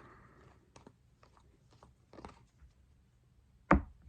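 Baseball trading cards being handled, with faint scattered ticks and rustles, then one sharp knock near the end.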